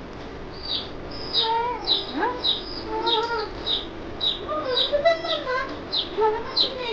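A young chick peeping loudly and steadily, short high notes that fall in pitch, about two to three a second. A small child's voice talks over it from about one and a half seconds in.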